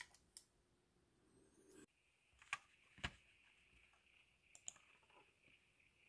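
Near silence with a few faint, scattered clicks, typical of a computer mouse, over a faint high steady whine.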